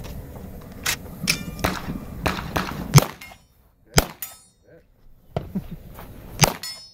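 A string of about nine to ten shots from a braced pistol, fired quickly in the first three seconds and then at slower, irregular intervals. Several shots are followed by a short metallic ring from steel targets being hit.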